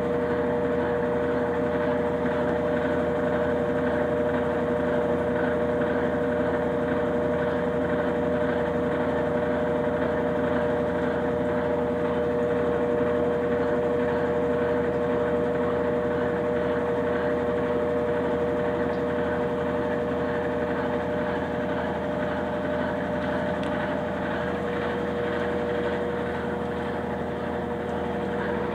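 Consul Facilite 9 kg top-loading washing machine running its spin cycle: a steady hum with a constant two-note motor whine that holds the same pitch.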